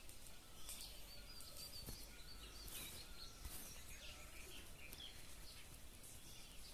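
Faint outdoor ambience with small birds chirping on and off, and a few brief soft clicks.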